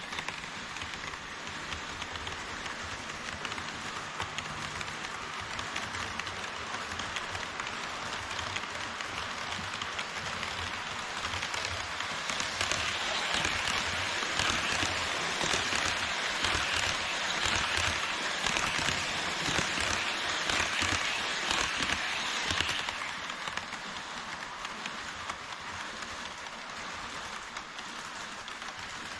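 HO scale model trains rolling along KATO Unitrack: a steady rushing noise of wheels on the track. It grows louder about twelve seconds in, as an E5 series Shinkansen model runs past close by, and eases off about ten seconds later.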